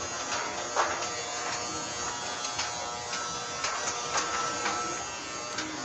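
Wild Cat roller coaster's lift mechanism running with a steady mechanical buzz, broken by sharp clicks and clanks every half second to a second.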